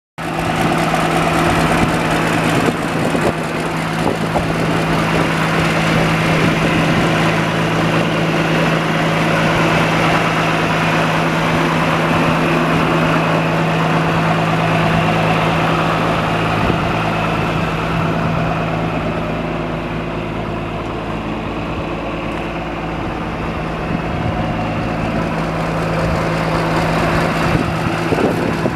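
John Deere 710D backhoe loader's diesel engine idling steadily with an even, low hum.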